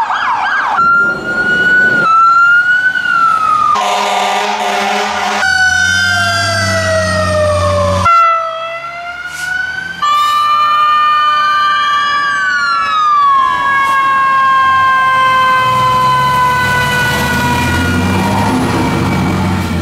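Electronic emergency-vehicle sirens wailing and yelping, cut off abruptly and changing several times as short clips follow one another, with an air horn blast about four seconds in. In the second half a fire truck's siren wails steadily while the truck's engine rumble grows louder near the end as it passes close.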